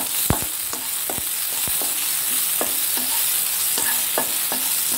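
Chopped onion, tomato and green chillies frying in hot oil in a non-stick pan, sizzling steadily, while a wooden spatula stirs them with irregular knocks and scrapes against the pan about every half second, the loudest one near the start.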